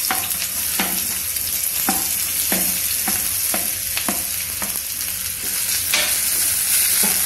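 Sliced onions sizzling in hot ghee in a pan: a dense, steady hiss. Light taps about twice a second come from a wooden spatula pushing the onions off a plate into the pan.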